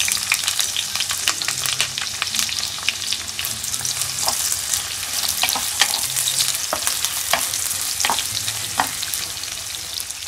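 Sliced onions sizzling and crackling in hot oil in a nonstick wok, stirred with a wooden spatula. A dense steady hiss with many sharp crackles, easing slightly near the end.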